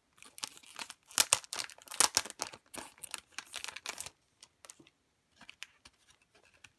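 Clear plastic wrapping crinkling and rustling as it is pulled off a CD package, for about four seconds. After that come only a few soft taps and rustles as the package is turned and opened.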